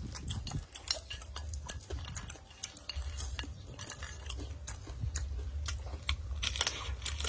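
Pieces of fried rat meat being dipped in chili sauce on a ceramic plate and eaten: many small scattered clicks and taps over a low steady rumble.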